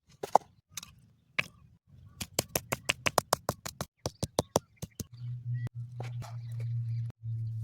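A quick, even run of sharp clicks, about five a second, followed about halfway through by a steady low hum with occasional bursts of hiss.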